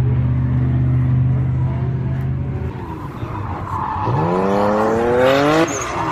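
Drift car engines at full noise: a steady engine drone, then about four seconds in a car revs hard, its pitch climbing for over a second before breaking off sharply, with tyre squeal as it slides sideways through the corner.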